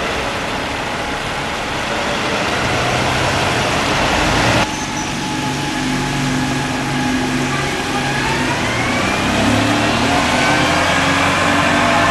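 A large diesel vehicle engine running with a dense rumbling noise. About halfway through the sound changes abruptly, and then the engine note climbs in pitch as it accelerates.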